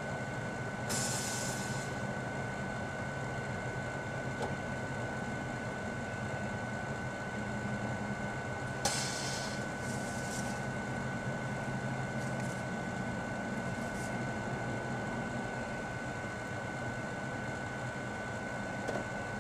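Microwave oven running with a steady hum and a constant high whine, with two brief hissing whooshes, about a second in and again near the middle, from the ink cartridges heating inside.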